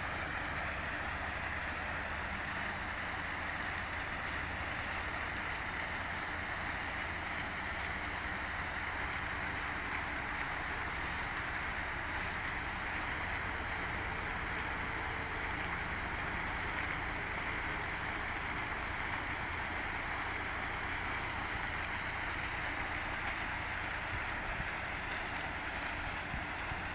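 Row of ornamental fountain jets spraying up and splashing back into the pool: a continuous, even rush of falling water, with a steady low hum underneath.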